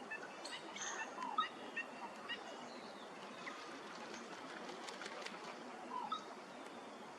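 Birds calling: short scattered call notes, busiest in the first two and a half seconds and again about six seconds in, over a steady background hiss.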